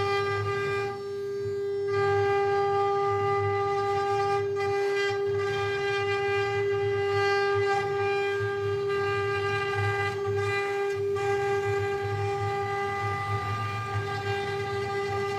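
CNC wood router's spindle running at high speed with a steady high whine and a rumble of cutting underneath; the upper part of the whine briefly thins out about a second in.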